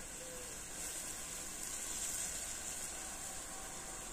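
Chicken stew in tomato sauce cooking in a metal pot over a wood fire, giving a steady high hiss.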